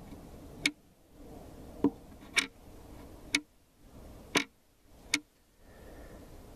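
Plastic magnetic drawer latch clicking as a magnet is held to it and taken away: six sharp clicks, unevenly spaced about half a second to a second apart.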